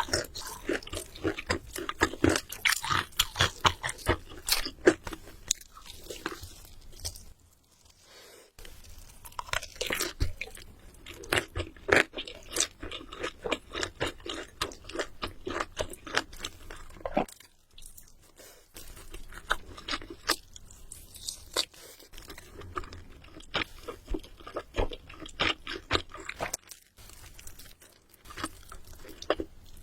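A person biting and chewing crispy fried chicken: runs of loud, crackling crunches with wet chewing, pausing briefly a few times.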